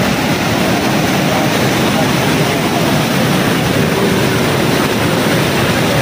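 Athirapally Falls roaring: a loud, steady rush of heavily falling water that does not let up.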